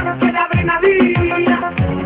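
Dance music with a steady beat: deep kick drums that drop in pitch, a bit under two a second, under pitched instrument lines, with no singing.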